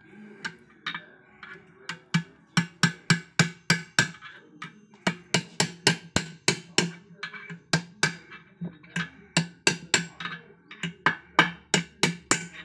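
Hand hammer striking a drift and the aluminium crankcase half of a Kawasaki KB100 two-stroke engine, tapping a part home. Runs of sharp metallic taps, about three a second, broken by short pauses.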